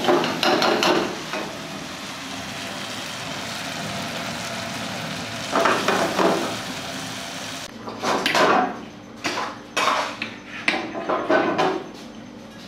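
Metal ladle scraping and clanking in a steel kadhai as chicken curry is stirred, over a steady frying sizzle. Later come a series of separate metal clinks as the curry is spooned into a bowl.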